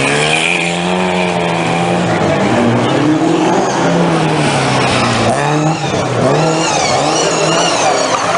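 Rally car engine revving hard on a street stage, its pitch climbing and dropping with gear changes. In the second half a high, wavering tyre squeal rides over it as the car corners.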